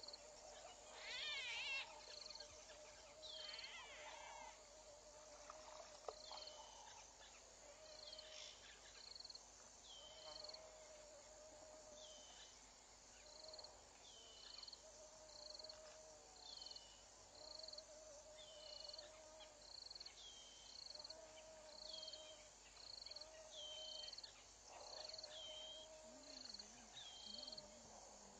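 Faint bush ambience of repeated animal calls: a high short note that slides down, repeated evenly about every second and a half, over a lower, steadier call that repeats at a similar pace, with a few quick chirps in the first few seconds.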